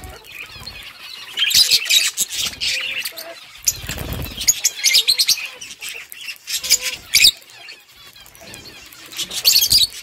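A flock of budgerigars chattering and chirping in repeated bursts, with a low rumble about four seconds in.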